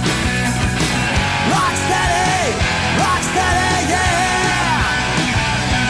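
Rock music with a sung vocal line and a steady drum beat.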